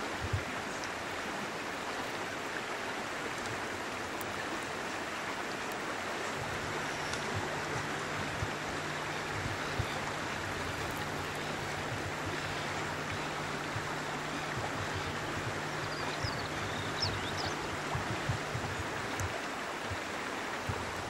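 Steady rush of a river's flowing water, an even, unbroken sound.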